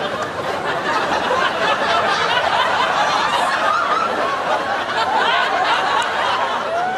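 Studio audience laughing, a steady run of many people chuckling and laughing together.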